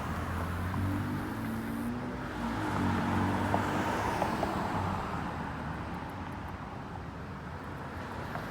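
Road vehicle engine going by, a low hum strongest from about half a second to four seconds in, then fading into faint background traffic.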